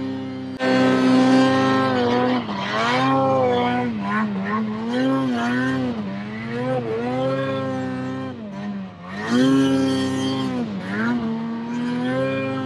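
Ski-Doo Summit snowmobile's two-stroke engine revving up and down again and again as the throttle is worked through deep snow. The revs jump sharply about half a second in, and drop briefly near nine seconds before climbing again.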